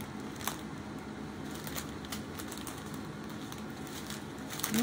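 Light plastic rustling and crinkling with scattered small clicks, as a stack of small plastic bags of diamond-painting drills is shuffled through by hand.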